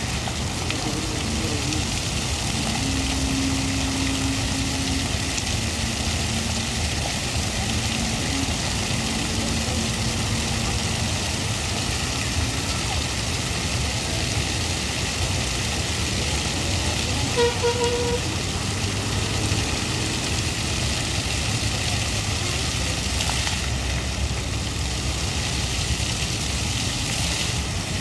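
Water jets of a lit fountain spraying and splashing into the basin in a steady rush, with road traffic hum behind. A brief vehicle horn toot comes a little past halfway.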